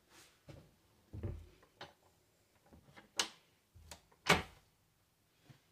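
A handful of short knocks and clicks with quiet between: a low thump a little over a second in, a few sharp clicks, and the loudest sharp click just past four seconds.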